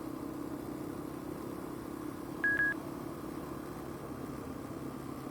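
An engine running steadily at idle, with one short high-pitched electronic beep about halfway through.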